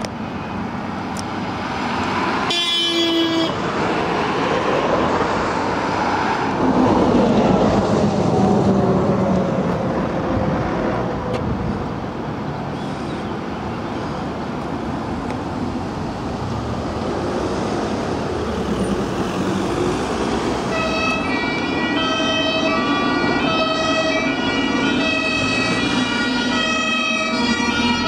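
Road traffic passing close by, with a short horn blast about three seconds in. Later the two-tone horn of approaching fire engines sounds, switching back and forth between a lower and a higher note.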